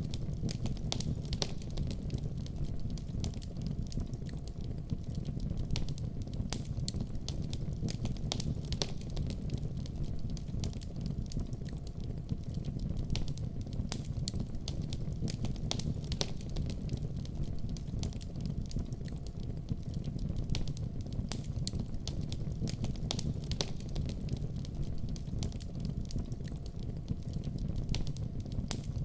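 Wood fire burning in a fireplace: a steady low rumble of flames with many sharp, irregular crackles and pops.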